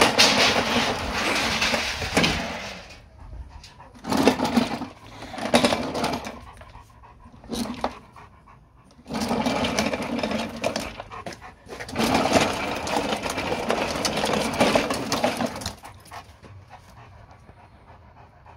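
Long-haired German Shepherd grumbling in long, drawn-out vocal bouts, as if arguing: several bouts of one to four seconds each, with short pauses between.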